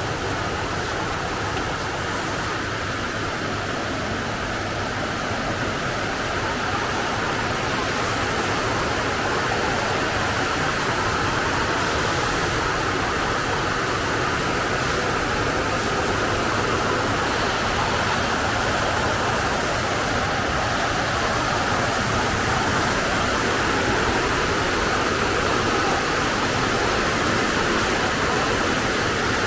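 Steady rushing noise with no clear pitch, rising slightly about eight seconds in.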